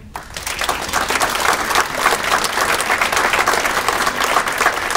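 Audience applauding, a dense run of many hands clapping that starts just after the closing thank-you and keeps going.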